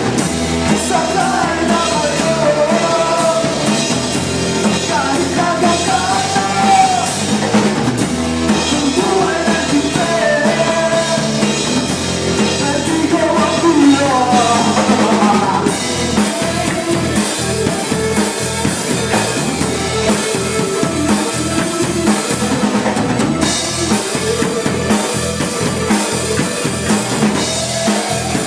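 Live rock band playing: a singer over drums and band for about the first half, then the singing stops and the drum kit keeps a steady beat under the band.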